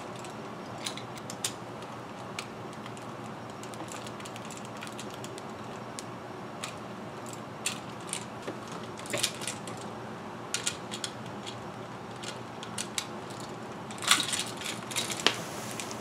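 Scattered light clicks and rattles of a metal-and-plastic wall dimmer switch, its wires and a screwdriver being handled while it is wired in a wall box, over a steady hiss. The clicks come thicker near the end.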